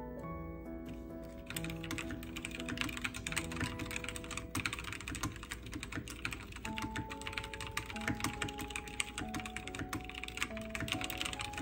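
Fast typing on a backlit computer keyboard: a dense, rapid run of key clicks that starts about a second and a half in, over soft background music.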